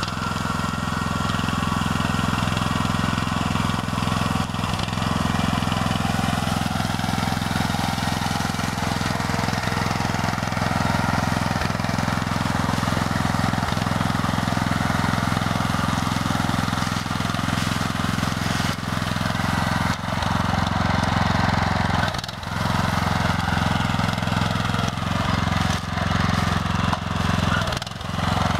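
Grillo G110 walk-behind tractor's engine running steadily under load as it pushes a buck rake through windrowed hay, with two brief dips in level near the end.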